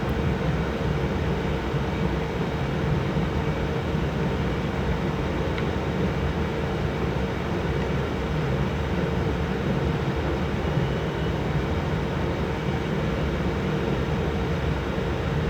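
Computer cooling fans running at a steady pace: an even whir with a constant mid-pitched hum.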